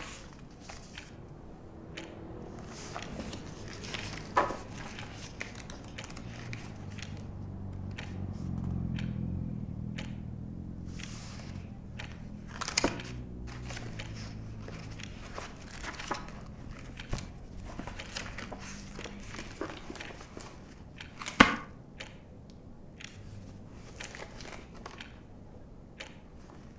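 Quiet shop-room ambience: scattered small knocks and handling noises of someone pottering about, with three sharper knocks, the loudest about two-thirds of the way in. Under it, a low street-traffic rumble swells and fades around the middle.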